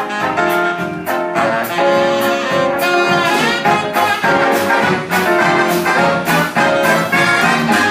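Live jazz big band playing: saxophone, trumpet and trombone sections in full ensemble over a drum kit keeping a steady beat.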